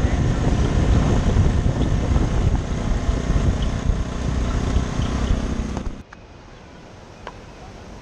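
Heavy wind buffeting the camera's microphone while it moves across a bridge, a loud low rumble. It cuts off sharply about six seconds in, leaving a much quieter steady rush of river water.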